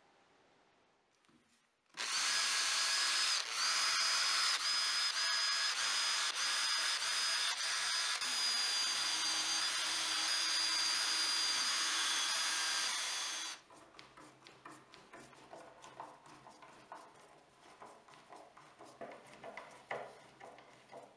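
Cordless drill running steadily for about eleven seconds as it bores holes into a plywood board, with a high whine over the motor, then cutting off abruptly. Faint clicks and taps follow as small screws are set into the holes by hand.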